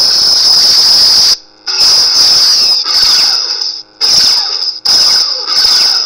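A custom lightsaber's Crystal Focus v5 soundboard playing a loud, hissing, squealing effect from the Mad Cow Hero sound font through the hilt's speaker. It cuts off briefly three times and starts again each time.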